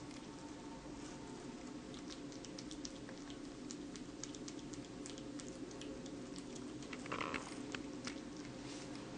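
Kitten licking and nibbling a wedge of watermelon: small wet clicks and smacks, several a second, over a steady hum, with a brief louder sound about seven seconds in.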